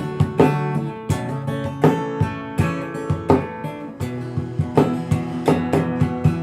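Acoustic guitar played fingerstyle: a plucked melody over ringing bass notes and chords, with a new note struck about every half second.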